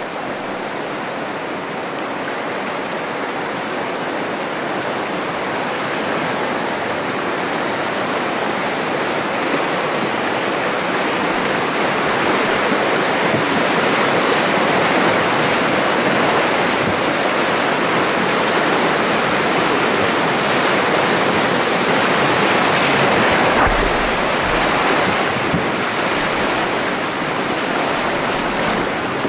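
River whitewater rapids rushing loudly around a boat running through them. The rush grows louder over the first ten seconds or so and then holds.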